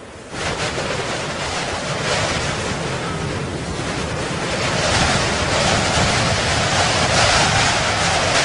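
Wind rushing, coming in abruptly just after the start and growing stronger about halfway through.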